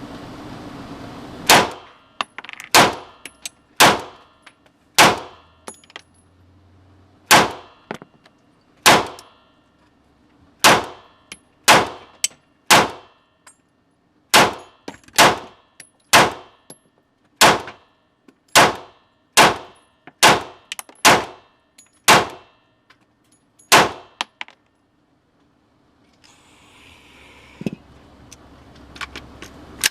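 CZ P-09 semi-automatic pistol firing a string of about nineteen single shots, roughly one a second with some uneven pauses, each shot ringing briefly. The shooting stops a few seconds before the end.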